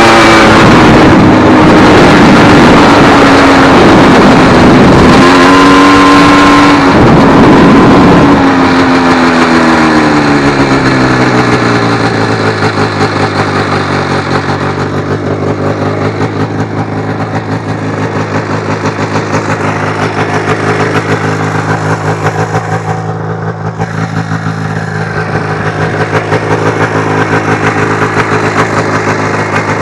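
Yamaha SRV 540 two-stroke twin-cylinder snowmobile engine in a homemade kart, running loud at high revs with its pitch rising and falling for the first eight seconds or so. It then drops in pitch and settles to a steady, quieter idle.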